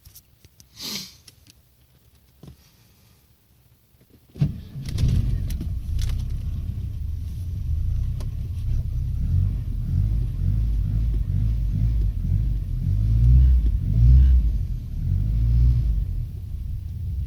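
Audi 80 petrol engine starting about four seconds in, then running at idle with a steady low rumble that swells a little twice near the end. The engine is presented as having a knocking hydraulic valve lifter.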